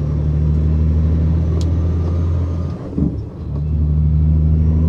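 Semi truck's diesel engine droning inside the cab under way. Near the middle the engine sound dips for about half a second during a gear change, then picks up again.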